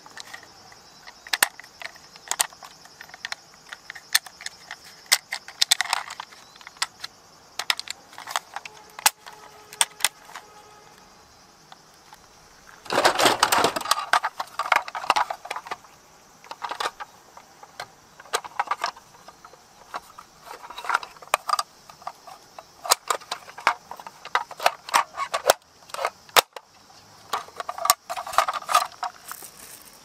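Plastic toy trucks clacking and knocking against each other and the cardboard box as they are handled and lifted out, in sharp irregular clicks, with a louder spell of rattling about halfway through.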